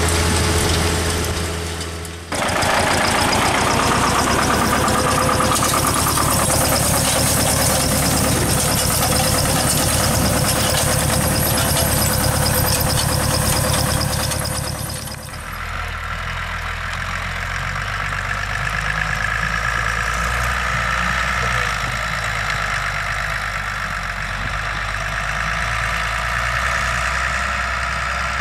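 Tractor diesel engines running steadily under load while working soil, in three clips that cut abruptly into one another about two seconds in and again about halfway. The last is a Steyr tractor pulling a mounted plough.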